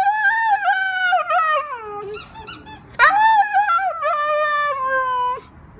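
A husky's howling 'singing': two long, high, wavering calls, each sliding down in pitch at its end, with a quick run of short squeaky sounds in the gap between them.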